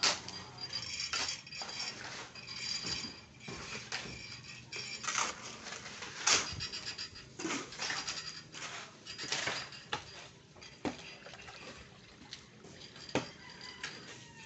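Construction work: irregular metallic clanks and knocks, roughly one a second, some of them leaving a short ringing tone, with the loudest one about six seconds in.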